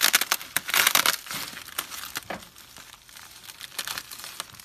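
Bubble wrap crinkling and crackling as hands unwrap it. The crackling is densest in about the first second, then thins to scattered crackles.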